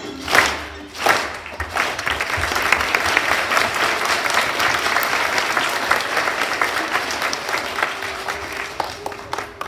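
The hasapiko dance music ends with its last beats about a second in, and an audience applauds, the clapping slowly dying away.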